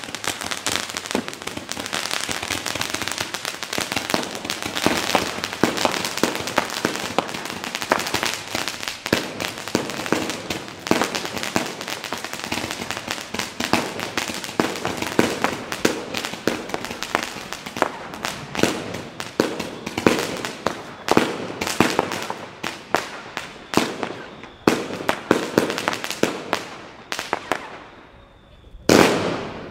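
Consumer fireworks batteries firing. A dense, continuous crackling and popping of shots and bursting stars thins out after about 18 seconds into separate bangs, with a brief lull and a loud bang near the end.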